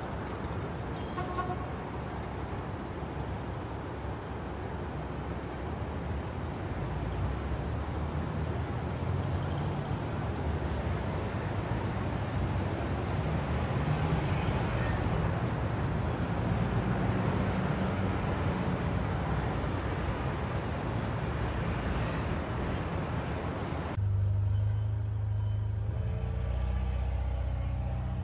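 Steady engine rumble with a hiss over it. About 24 seconds in it switches abruptly to a louder, steadier diesel engine drone from a wheel loader pushing snow.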